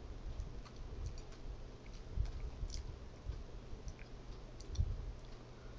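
Faint chewing of a jalapeño slice, with scattered small wet mouth clicks and a few low thumps.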